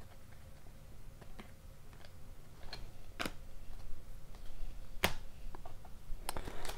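Upper Deck hockey cards being flipped through by hand: scattered soft clicks and snaps of card edges, the sharpest about three seconds in and again about five seconds in, with a quick run of clicks near the end.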